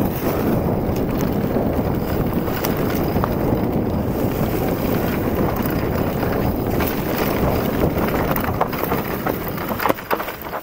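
Wind buffeting the microphone of a mountain bike descending fast on a dirt and leaf-covered trail, mixed with tyre rumble and rattling from the bike. Near the end the noise drops, leaving a few sharp clicks and knocks.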